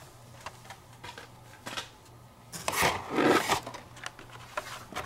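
Carded Hot Wheels cars in plastic blister packs being handled over a cardboard box: scattered light clicks and rustles, with a louder stretch of rustling and rubbing near the middle.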